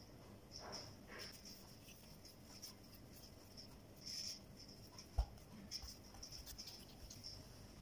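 Faint rustling and scraping of hands tearing off and rolling tortilla dough into balls on a floured countertop mat, with a light bump about five seconds in. Faint high chirps come and go behind it.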